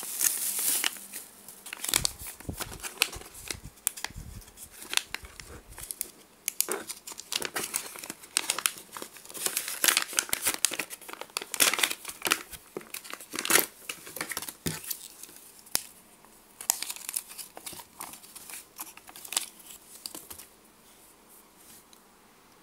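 Plastic packaging, bubble wrap and a clear plastic bag, crinkling and crackling irregularly as it is handled and unwrapped by hand, stopping near the end.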